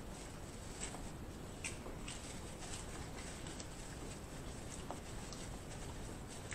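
Faint close-up chewing with the mouth closed: scattered small wet clicks over a low hiss.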